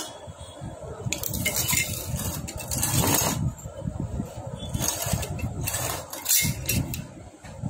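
Scattered metal clinks and knocks as the parts of a stripped Honda Activa engine are handled, with a low uneven rumble of handling underneath.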